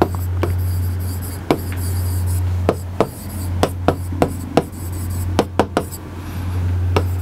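Handwriting on a board: a pen tip taps and scratches out letters in a string of irregular sharp clicks with short scrapes between them. Under it runs a steady low hum.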